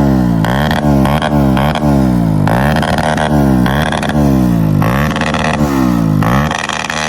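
Motorcycle engine revved in repeated throttle blips, each rev jumping up quickly and falling away, about once or twice a second.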